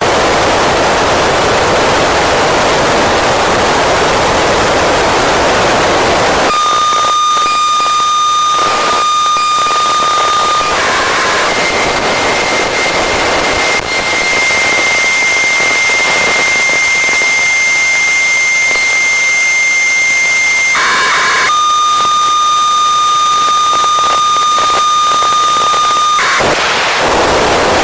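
FM radio receiver hiss from the AO-27 satellite's 70 cm downlink on an Icom ID-5100. A few seconds in, the hiss gives way to a steady whistle tone. The tone jumps to a higher pitch around a third of the way in and back down about two-thirds in, with short bursts of hiss at each change, and full hiss returns near the end.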